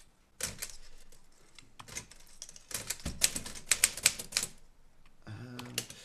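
Manual typewriter being typed on: irregular clusters of sharp key strikes clacking against the platen, with a fast, loud run of strokes from about three to four and a half seconds in.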